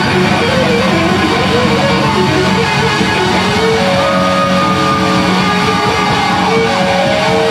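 Live funk band playing, with electric guitars, bass, drums and keyboards. Long held notes come in about halfway through.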